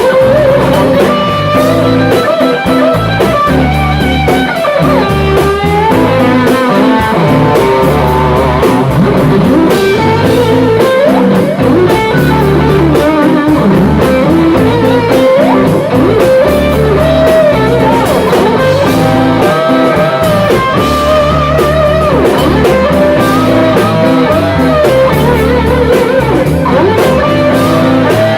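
Rock band playing live, with electric guitar carrying bending lead lines over bass and drums in a bluesy instrumental stretch.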